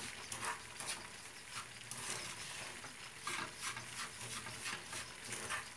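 Wooden spoon stirring and scraping semolina and flour roasted in butter, with sugar just added, in a small nonstick frying pan over a gas flame, with a light sizzle of the mixture frying. The strokes come about two or three a second.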